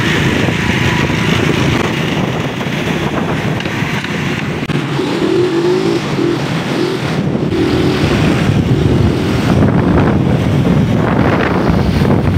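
Small motorcycle engines running on the move, with road noise and wind buffeting the microphone.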